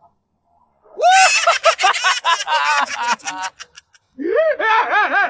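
High-pitched, cartoon-like voice laughing in two bouts: a loud run of quick 'ha-ha' laughs starting about a second in and dying away by about three and a half seconds, then a second, rhythmic run of laughs starting near four seconds and still going at the end.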